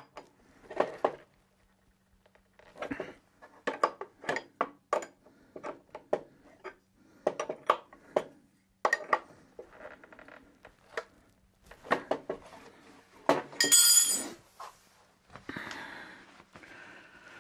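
Hand tool clicking, tapping and clinking against the metal fittings of an oil burner's fuel lines as they are tightened: short, irregular knocks, with a brighter metallic jangle about three quarters of the way through, followed by soft rustling.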